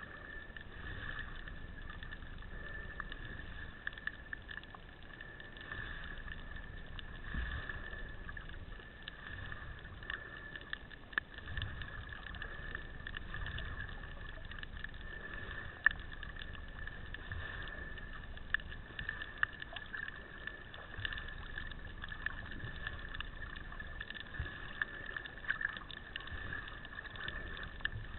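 Muffled underwater sound through a waterproof camera housing: a steady hiss with scattered sharp clicks and crackles, and uneven low rumbling from water moving around the camera. One click about halfway through is louder than the rest.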